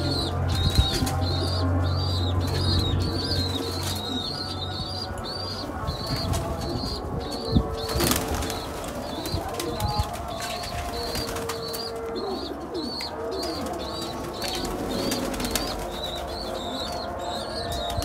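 Pakistani flying pigeons bathing in a shallow tub of water, with wing flapping and scattered short flutters and knocks. Behind them a small bird chirps steadily, about two short chirps a second.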